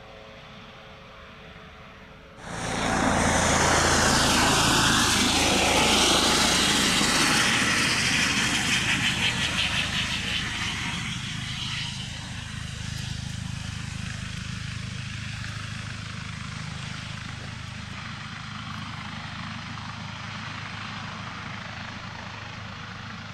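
Eurocopter EC135 helicopter's turbines and rotor. The sound is faint and distant at first, turns suddenly loud a couple of seconds in, then eases to a steady rotor and turbine noise.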